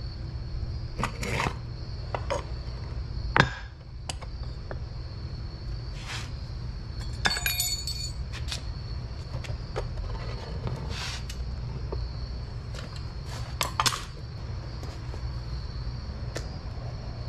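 Scattered metal clinks and knocks as steel tongs handle glowing copper ingots on a concrete block beside a small metal ingot mold. The loudest knock comes about three and a half seconds in, and a brief ringing clink about halfway through. A steady low rumble runs underneath.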